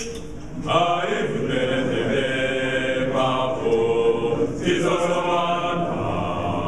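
Mixed choir of men's and women's voices singing a hymn a cappella in several parts, with new phrases entering about a second in and again midway.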